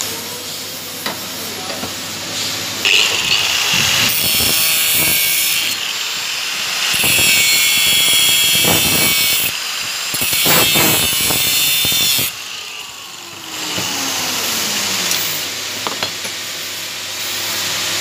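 A power tool cutting metal stock in several bursts of a few seconds each, with short pauses between them and a falling tone past the middle as it slows.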